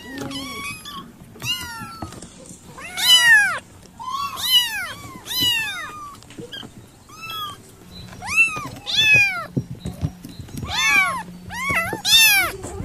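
Kittens mewing over and over in short, high calls that rise and fall in pitch, about a dozen of them with brief gaps between, a few louder than the rest.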